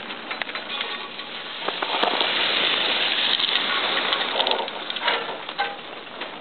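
Skis sliding and scraping over hard-packed groomed snow: a crackling, hissing scrape that grows louder about two seconds in and eases off near the end.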